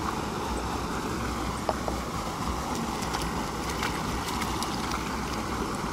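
Steady rushing of water spilling over a small concrete weir into a creek, with a couple of faint clicks a little under two seconds in.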